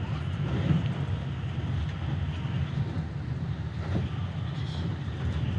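Keikyu 1000 series electric train running on the rail, heard from inside the driver's cab: a steady low rumble of wheels and running gear.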